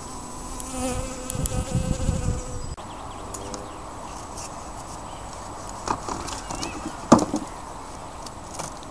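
Honeybees buzzing among flowering willow catkins, a wavering hum. After a cut the buzz goes on more faintly at an open hive, with a few sharp knocks as the hive lid and boxes are handled, the loudest about seven seconds in.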